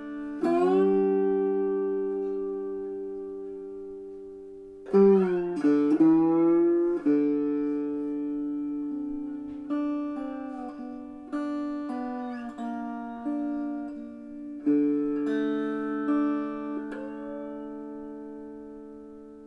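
Three-string cigar box guitar tuned D-A-D, played through an amp: plucked notes and chords left to ring and fade, with a few notes sliding in pitch about five seconds in.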